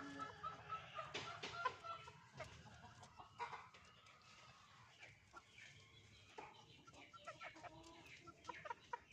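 Bantam hen clucking faintly in runs of short, repeated notes, once near the start and again over the last few seconds.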